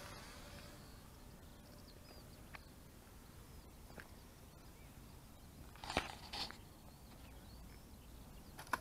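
Distant hum of a radio-controlled model warplane's motor fading away as it flies off. Then quiet open-air ambience with faint high bird chirps. A couple of brief rustling knocks come about six seconds in and again near the end.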